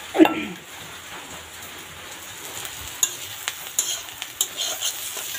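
Fish, onions and chillies frying in a steel kadai, sizzling steadily while a steel spatula stirs them, with sharp scrapes and taps of the spatula on the pan between about three and five seconds in. A short loud sound comes right at the start.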